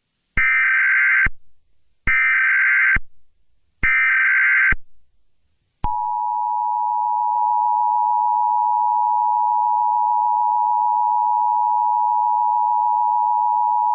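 Emergency Alert System SAME header: three short bursts of digital data tones, each about a second long. They are followed by the EAS two-tone attention signal, a steady, harsh dual tone lasting about eight seconds that announces an emergency alert broadcast.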